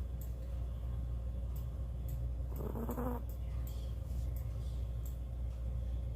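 Dog snoring in its sleep: one snore about two and a half seconds in, over a steady low hum.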